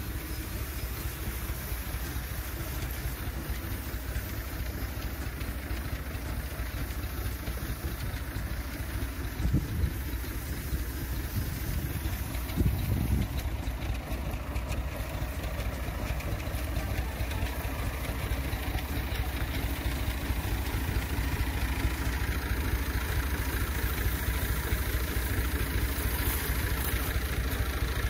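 Motorised orchard sprayer's engine-driven pump running steadily, with the hiss of the spray gun's mist over it. Two brief louder bumps come about ten and thirteen seconds in.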